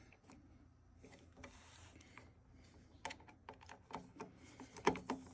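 Faint, irregular light clicks and taps, a quick run of them starting about three seconds in, from the plastic door latch of a Norcold RV refrigerator being handled.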